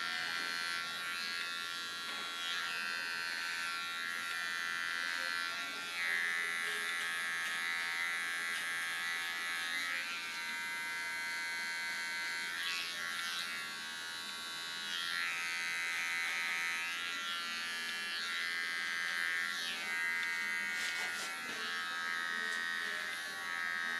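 Small cordless hair clipper buzzing steadily while trimming short hair around the ear, its hum growing louder and quieter as the blade is worked along the hairline.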